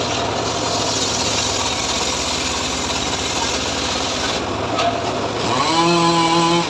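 Homemade circular log saw (srekel) cutting lengthwise through a teak log with a loud, steady, rasping hiss. Near the end the rasp thins out and gives way to a steady pitched tone that rises briefly and then holds: the saw's engine and blade running with the cut easing off.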